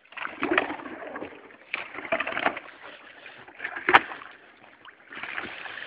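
Thin ice, about a centimetre thick, being broken up in open water: irregular bursts of sloshing and splashing with ice crunching and clinking, and one sharp crack about four seconds in.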